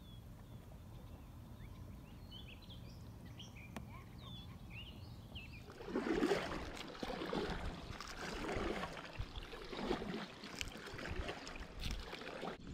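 A few faint bird chirps over a low steady background. Then, from about six seconds in, a kayak paddle dips and pulls through the water in repeated splashing strokes, about one every second and a half.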